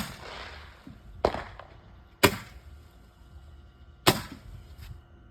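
Roman candle firework shooting off its balls one at a time: four sharp pops spaced about one to two seconds apart, each with a short echo, and a fainter pop near the end.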